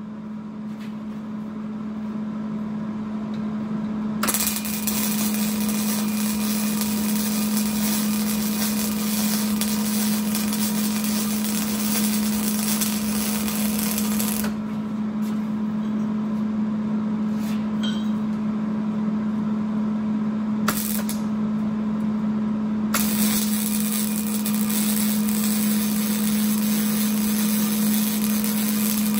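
Stick (arc) welding on steel: the arc crackles and sizzles in two long runs, a first bead of about ten seconds, a brief strike, then a second bead near the end, over a steady hum.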